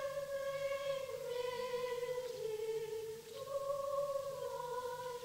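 Amateur singing from an early-1960s reel-to-reel tape recording: a single melody line held in long notes of about a second each, stepping slowly up and down in pitch, with a faint low hum beneath.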